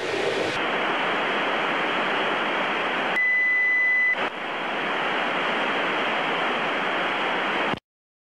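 Steady hiss of a fighter jet's cockpit radio channel, with a single high beep lasting about a second around three seconds in. The hiss cuts off abruptly near the end.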